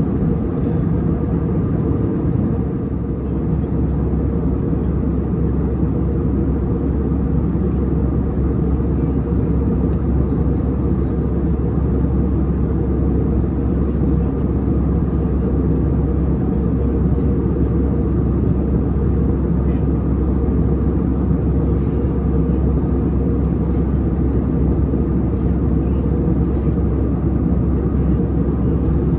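Steady cabin drone of an Airbus A321neo airliner in descent: engine and airflow noise heard from inside the passenger cabin, deep and even throughout.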